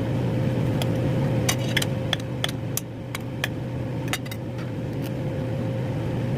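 Sharp, light clicks and taps of a knife and kitchen utensils while canned beets are trimmed, about a dozen scattered over the first five seconds. Under them runs a steady low appliance hum.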